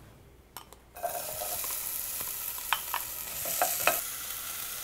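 Chopped onion and garlic dropped into hot olive oil in a stainless steel pot, sizzling starting suddenly about a second in and then running steadily. A utensil stirring the pot gives a few short clicks on the metal partway through.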